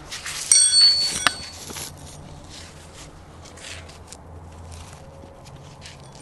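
Metal pieces clinking and rattling, loudest in the first two seconds with a ringing metallic clink, then quieter scrapes and handling noises.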